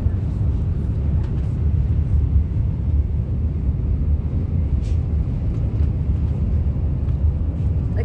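A car driving along a highway, heard from inside: a steady low rumble of road and wind noise, with a few faint ticks.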